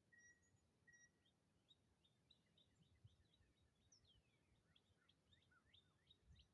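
Near silence with faint birdsong: a few short, evenly spaced steady notes in the first second, then a quick run of chirps and falling slurred notes.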